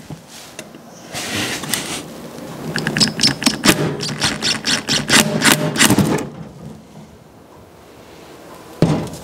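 Cordless impact driver hammering on a stubborn, rusted scissor pivot screw through a thinned flathead bit, a rapid rattle of impacts. A short burst comes about a second in, then a longer run from about three to six seconds, with a single knock near the end.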